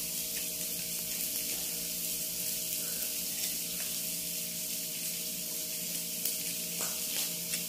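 Food sizzling and splattering on a grill pan over a portable gas stove: a steady hiss. Under it runs a steady low hum, with a few light clicks near the end.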